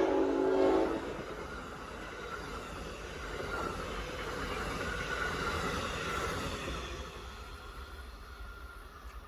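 The end of an Amtrak train's Nathan K5LA air-horn chord, cutting off about a second in, followed by the rumble of the train going by, which swells and then fades away.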